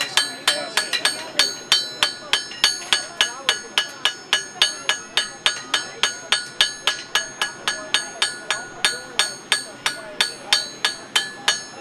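Blacksmith's hand hammer striking hot mild steel on an anvil in a steady rhythm, about three blows a second, each blow ringing. This is the drawing out of a tapered square on the bar.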